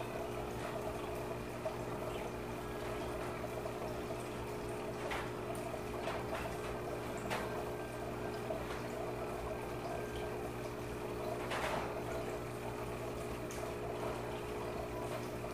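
Aquarium filter and aeration running: steady bubbling and trickling water over a low electrical hum, with a few faint clicks.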